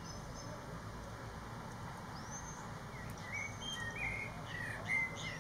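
Male common blackbird singing: a phrase of fluted whistled notes with higher twittering notes, coming in about three seconds in and loudest near the end, over a steady low background rumble.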